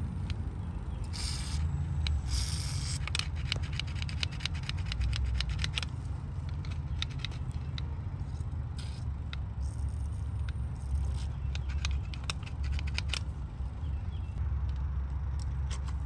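Short hisses of CRC Power Lube aerosol sprayed through its straw into an RV door latch's slide, two strong ones about one and two and a half seconds in and a fainter one later. Repeated small metallic clicks and rattles of the latch mechanism being handled and worked run through it, over a low steady rumble.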